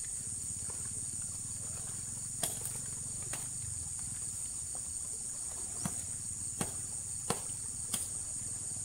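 A steady, high-pitched insect chorus, with about half a dozen sharp clicks or knocks scattered through it.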